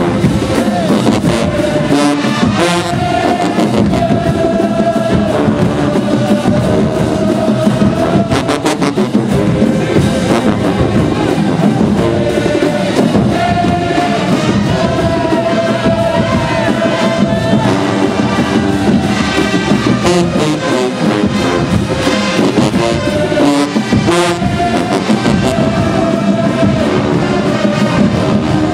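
Marching band of brass and drums playing a stand tune, with held horn notes over a steady drum beat.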